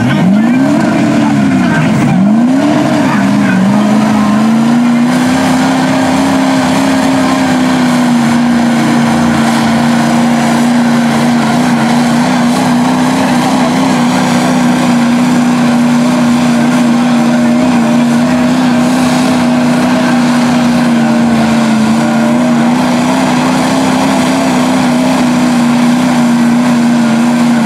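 A monster mud truck's engine revs up and down a few times, then holds at a steady high rpm while its giant tires spin and churn through deep mud, slinging it out in sheets. The revs drop right at the end.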